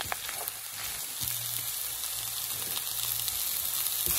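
Shredded chicken, onion and frozen peas and carrots sizzling as they fry in an oiled pan, stirred with a silicone spatula that scrapes a few times near the start.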